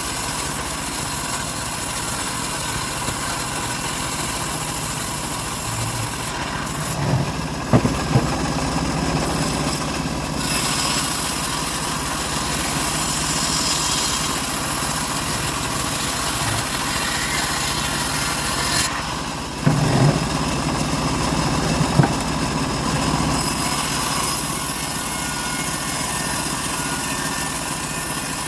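Engine-driven homemade bandsaw mill running steadily while sawing a large teak log, with a few sharp knocks about a quarter of the way in and again about two-thirds of the way through.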